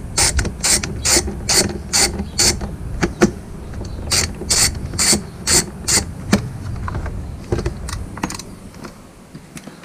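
Hand ratchet clicking in quick back-and-forth strokes, about two a second, as a fastener is undone. The strokes stop briefly around the middle, then come fewer and further apart near the end.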